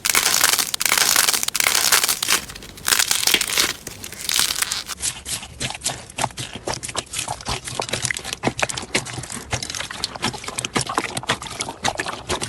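Slime being squeezed and kneaded by hand: dense crinkly crunching for about the first five seconds, then a looser run of small sticky pops and clicks.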